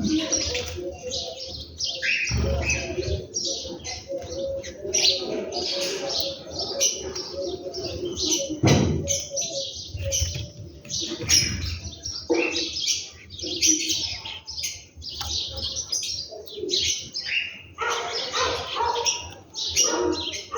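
A flock of small birds chirping busily, many short overlapping high chirps without pause, with a few brief low rumbles mixed in.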